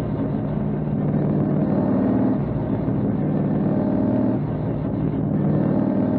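Pro Stock super late model race car's V8 engine running hard under racing load, heard from inside the cockpit, its pitch shifting a couple of times through the lap.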